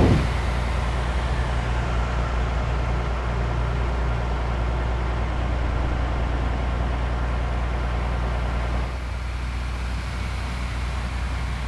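Bus engine and road noise in a steady low drone, opening with a brief thump and dropping slightly in level about nine seconds in.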